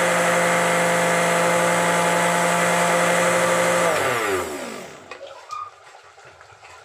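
Electric mixer grinder running at steady high speed, then switched off about four seconds in, its pitch falling as the motor winds down. After that, faint clinks of a ladle stirring in an aluminium pot.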